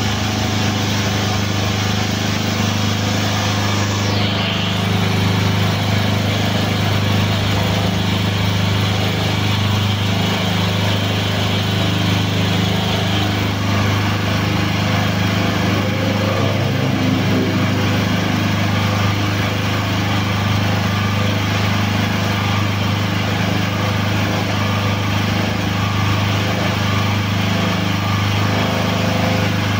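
The hydraulic forklift tire press running steadily with a constant machine hum as its ram pushes the rim out of a solid 7.00-12 forklift tire.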